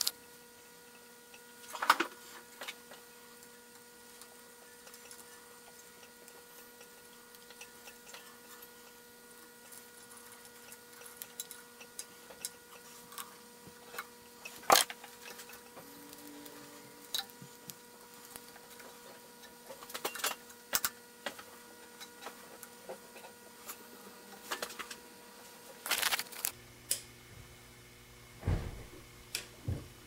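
Scattered clicks and taps of hands handling a small plastic switch box, its wiring and screws, with a thump near the end. A faint steady electrical hum runs underneath.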